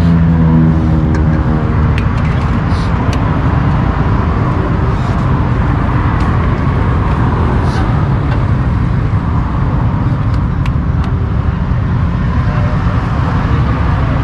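Motorcycle engines running with a steady low rumble. A pitched engine note near the start fades out about a second in.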